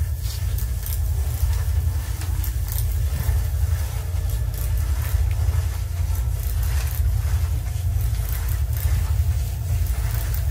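Electroacoustic collage played over loudspeakers: a steady low mechanical drone with scattered crackles and clicks above it. It is built from layered, slowed-down recordings of a historic laundry mangle turning and plastic bottles squeezed between its rollers.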